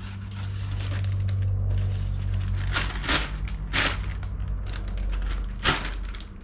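Clear plastic bag being handled and crinkled, in a few sharp crackles, the loudest near the end, over a low steady rumble.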